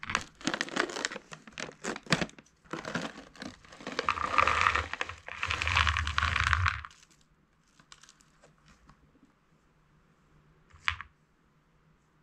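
A plastic snack bag of honey roasted peanuts crinkling and crackling as it is torn open, then peanuts tipped out of the bag onto a plate, rattling under the crinkling of the bag. It stops about seven seconds in, and one short sharp knock follows near the end.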